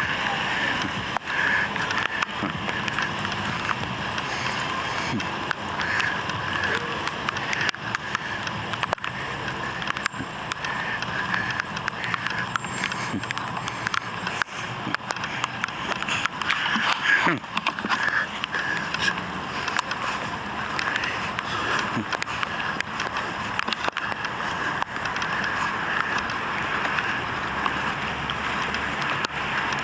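A vehicle on the move: steady road and engine noise with small rattles and clicks, with faint voices.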